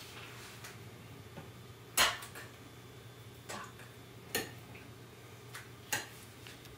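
Feet stepping on a hard floor: four sharp taps at uneven intervals, the loudest about two seconds in, over a low steady hum.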